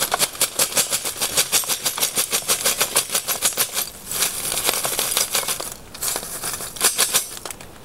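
A heavy steel-wire ash basket full of leftover lump charcoal being shaken rapidly over a trash can, about seven rattles a second. The charcoal and wire clatter while ash sifts through the mesh into a plastic bag liner. About halfway through the rattling turns into a denser rustling hiss, and a few more rattles come near the end.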